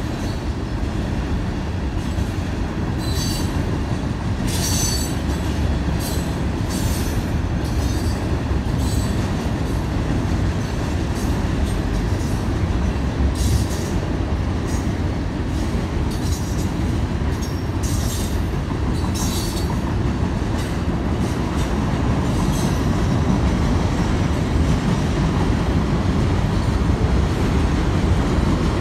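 Freight train's cars rolling across a girder railway bridge: a steady low rumble, broken several times in the first twenty seconds by brief high squeals.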